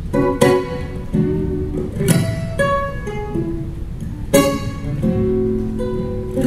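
Solo acoustic guitar played fingerstyle: an instrumental passage of plucked melody notes over ringing chords, with three firmly struck chords spread through it.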